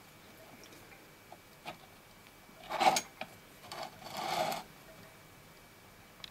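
Steel plate of a shop-made cutter-grinder finger holder being slid by hand over a metal base plate: a few light clicks, then two short scraping rubs about a second apart, the first louder.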